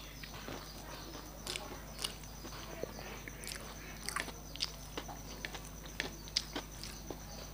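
Close-up eating sounds: a person chewing a mouthful of rice, with small irregular clicks and smacks of the mouth, while fingers mix rice with mashed taro leaf on the plate.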